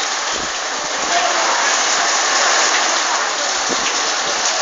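Heavy rain falling steadily, an even dense hiss.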